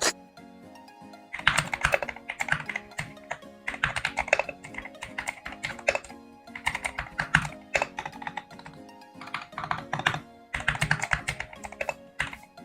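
Typing on a GMK67 keyboard fitted with pre-lubed Gateron Milky Yellow Pro linear switches and XDA-profile keycaps: rapid keystrokes in several bursts of a second or two, with short pauses between them. Background music plays throughout.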